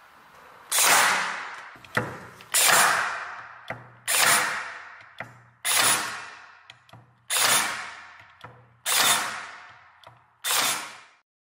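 Bielmeier 20V cordless electric staple gun firing seven times into a wooden board, about every one and a half seconds. Each shot starts suddenly and fades over about a second, with a light click between shots.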